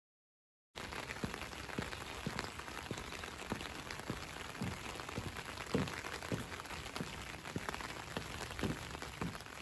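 Rain falling on a wet street and paving: an even hiss with many separate drops landing close by. It starts about a second in, after a brief silence.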